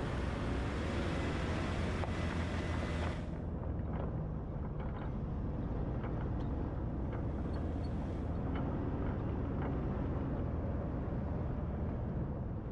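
Jeep driving along at low speed with a steady low engine rumble. A brighter hiss cuts off about three seconds in, and a few faint ticks follow.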